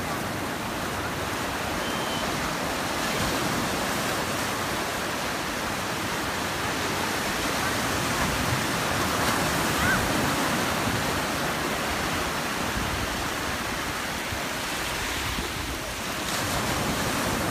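Ocean surf breaking and foam washing through the shallows: a steady rushing noise that swells and eases a little from wave to wave.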